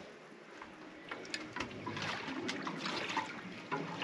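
Small water sounds against a boat's hull: gentle lapping and trickling, with scattered small irregular ticks and clicks.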